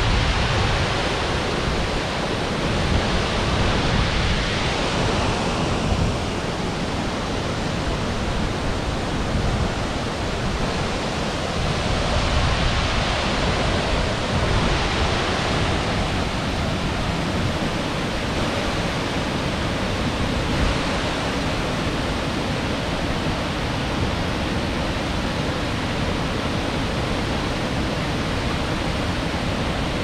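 Ézaro waterfall, where the Xallas river drops about 40 m down granite cliffs into a pool: a steady rush of falling water.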